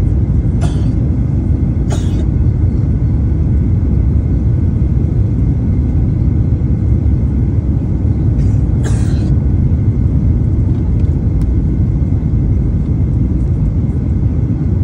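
Airliner cabin noise on the descent into landing: the jet engines and rushing air give a steady, loud, low rumble, heard from a window seat. Brief hissy sounds come about a second in, at two seconds, and again around nine seconds in.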